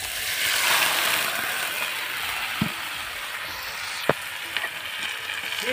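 Cooked rice tipped into a hot oiled wok of fried onions sizzles loudly as it lands, then settles into a steady sizzle. Two short knocks come about two and a half and four seconds in.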